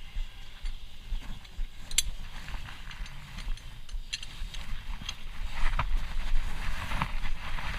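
Lug nuts being loosened with a car's stock tire iron: scattered metal clicks, clinks and scrapes, with a sharp clink about two seconds in.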